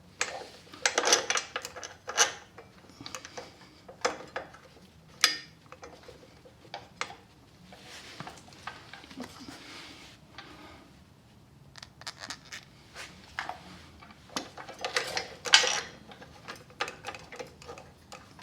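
Irregular light metallic clinks, scrapes and rattles of bolts and hand tools being handled while the motorcycle's front brake caliper bolts are put in, with a louder clatter about fifteen seconds in.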